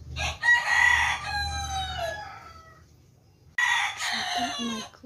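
Rooster crowing twice: a long crow of about two and a half seconds, then a shorter second crow near the end.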